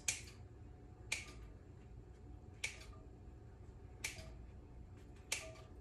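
Five sharp clicks spaced about a second and a half apart as bread is cut into chunks over a cast iron skillet.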